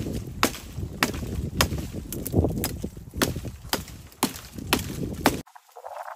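Steady series of sharp wooden knocks, about two a second, as a tree branch is struck with a hand tool, with leaves rustling between blows; it stops suddenly about five and a half seconds in.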